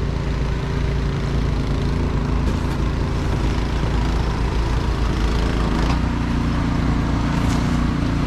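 An engine running steadily, with a shift in its tone about six seconds in.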